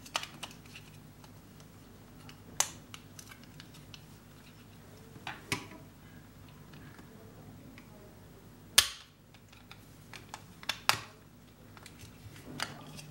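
Sharp plastic clicks and taps from handling an optical mouse's circuit board and plastic shell during reassembly, one every few seconds, with the loudest about nine seconds in and a quick pair near eleven seconds.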